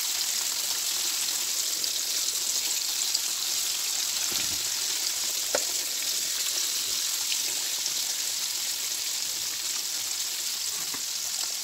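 Floured chicken pieces deep-frying in hot oil in a steel wok during their first, half-cooking fry: a steady sizzle, with a couple of faint clicks about midway.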